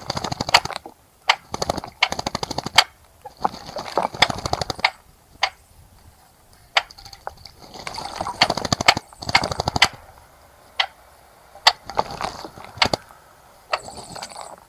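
A small bird bathing in a bird bath, splashing water with its wings in bouts of about a second, five or so times, with sharp flicks and clicks in between.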